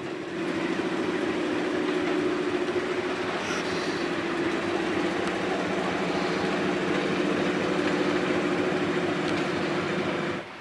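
SM42 diesel shunting locomotive running light at low speed, its diesel engine running with a steady drone. The sound cuts off suddenly just before the end.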